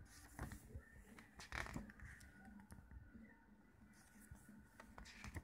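Faint rustling of a glossy photo booklet being handled, a page turned by hand, with the loudest rustle about a second and a half in, over quiet room tone.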